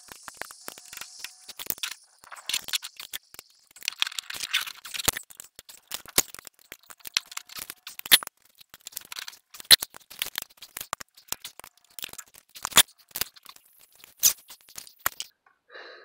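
Irregular sharp clicks, knocks and rattles of hands and metal tools handling parts around a truck's front wheel hub and steering knuckle, with a few louder knocks now and then.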